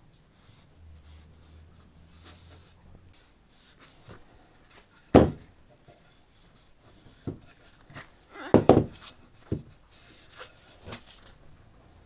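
Rag rubbing raw linseed oil into a wooden axe handle, faint and soft, broken by a few knocks as the axe is handled on the wooden workbench: one sharp knock about five seconds in and two or three close together around two-thirds of the way through.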